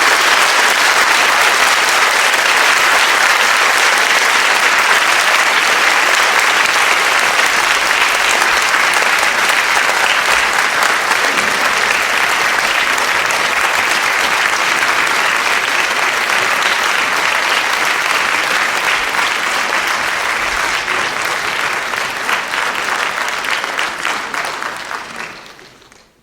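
Audience applauding: a dense, steady wash of many people clapping that slowly thins out, with single claps more distinct near the end, then fades away.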